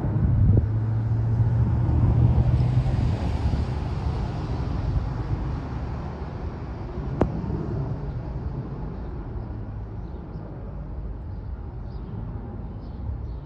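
Jet airliner's engines rumbling as it climbs away after takeoff, the noise slowly fading as it recedes, with a single sharp click about seven seconds in.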